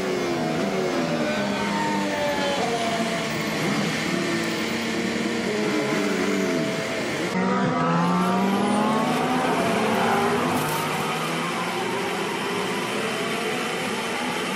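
Onboard sound of a Formula One car's 1.6-litre V6 turbo-hybrid engine revving up and falling back through gear changes. The engine note breaks off suddenly about seven seconds in, then climbs steeply again.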